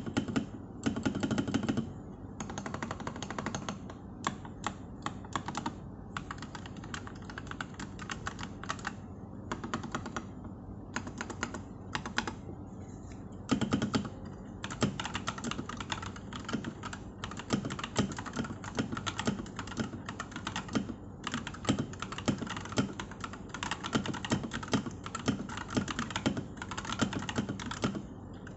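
Typing on an Akko 3084 v2 mechanical keyboard fitted with ASA-profile keycaps: fast runs of keystroke clacks in bursts, broken by short pauses.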